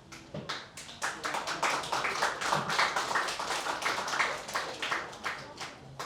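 Small audience applauding, individual hand claps heard distinctly, thinning out toward the end.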